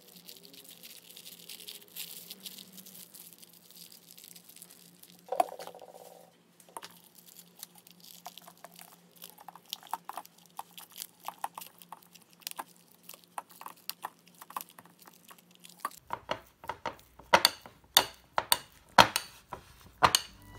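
Metal spoon stirring softened cream cheese in a ceramic bowl, knocking and scraping against the bowl in a quick run of sharp clicks over the last few seconds. Before that, faint handling clicks with one sharp clink about five seconds in.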